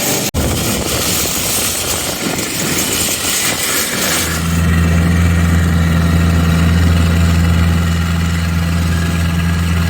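A vehicle engine running. For the first four seconds it sits under a rushing, wind-like noise; then a steady low engine drone takes over.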